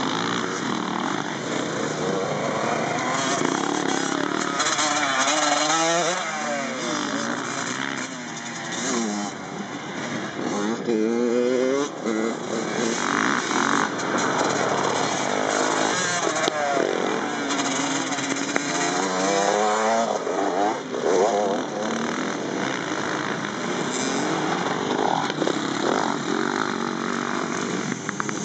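Motocross dirt bike engine being ridden, its pitch rising and dropping back several times as the throttle is opened and closed.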